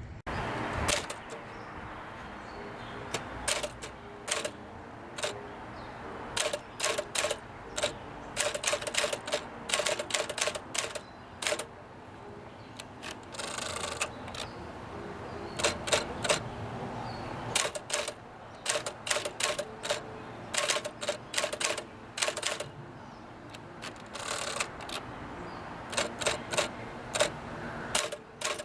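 Typing on a 1957 Smith Corona Clipper manual typewriter with a 6 CPI large typeface: irregular runs of key strikes and carriage steps. Twice, about 14 s and 24 s in, there is a longer rattling burst.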